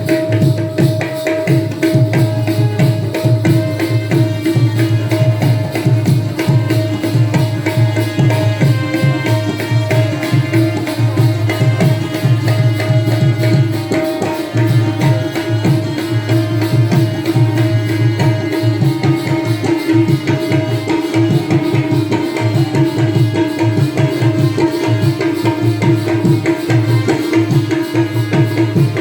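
Folk accompaniment for Jakhadi dance: a hand drum plays a fast, dense rhythm over a steady held drone note, with no singing.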